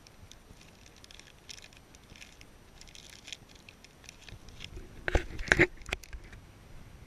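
Crinkling and rustling of a plastic soft-lure packet being handled over an open plastic tackle box. About five seconds in come a few loud knocks, the loudest sound of the stretch.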